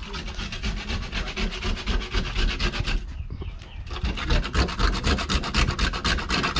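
Cinnamon being ground by hand: quick rhythmic rasping strokes, several a second, pausing briefly about three seconds in.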